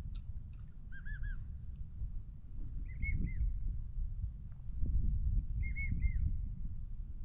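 Drake American wigeon whistling: three short bursts of three-note whistles, the first lower in pitch, the next two higher, over a low steady rumble.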